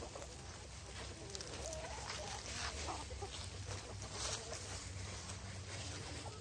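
Backyard chickens clucking, with a cluster of short calls about two to three seconds in and scattered light clicks.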